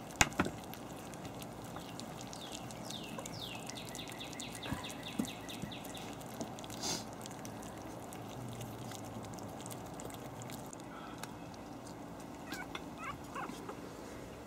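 Havanese puppies eating wet food from stainless steel pans, with faint scattered smacking and a sharp knock just after the start. A bird trills in the background for about three seconds: a few sliding notes, then a fast run of even notes.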